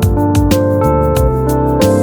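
Background music with a steady beat and held chords over a deep bass.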